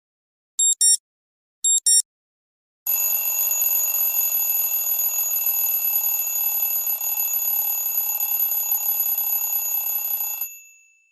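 Samsung Galaxy S Plus ringtones: two short high double beeps, then an old-style telephone bell ringtone ringing continuously for about eight seconds before fading out.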